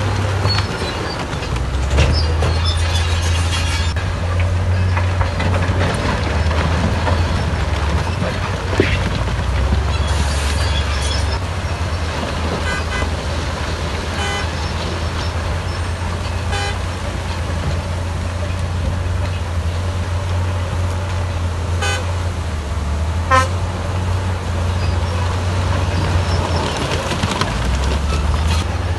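Heavy dump truck diesel engines running in a deep, steady rumble as the trucks tip loads of rock and soil. A few short, sharp sounds stand out now and then.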